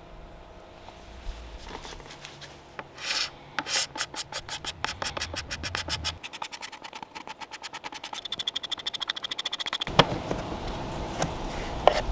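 Hand paint scraper rasping along the edge of a wooden tabletop in rapid, short, repeated strokes, taking off the old dirty, sticky finish. A few sharp knocks follow near the end.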